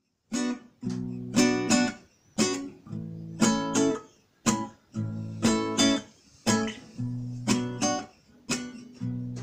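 Acoustic guitar strummed in a repeating rhythm, chords struck about twice a second, each ringing briefly before the next.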